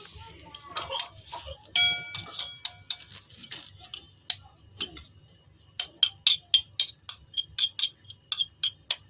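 A spoon stirring grated coconut pulp into warm water, clinking against the container. One clear ringing clink comes about two seconds in, and a quick even run of taps, about four a second, fills the second half.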